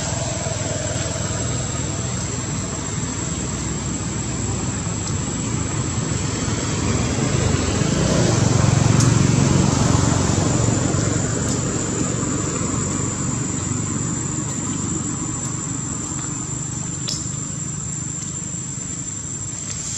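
Outdoor ambience: a steady high-pitched insect drone over a broad background hiss, with a low rumble that swells and fades near the middle, as of a passing vehicle.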